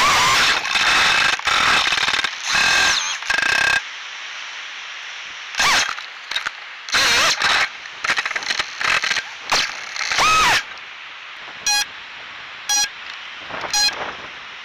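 Small toothpick-class FPV quadcopter's motors and propellers spinning up in short repeated bursts with whining pitch glides while the drone is caught in tree branches, the throttle punched and cut again and again. Near the end come short beeps about once a second.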